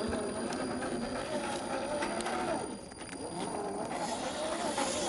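A 1/10 scale RC crawler's stock brushed electric motor and gears whining while it drives, the pitch rising and falling with the throttle and easing off for a moment about three seconds in.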